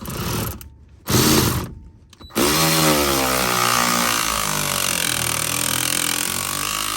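A power tool driving a 13 mm socket to remove the bolt that holds the transfer case shift linkage onto the shifter rod. It gives two short trigger bursts, then a long run starting about two and a half seconds in, whose pitch rises as the motor spins up and then holds steady.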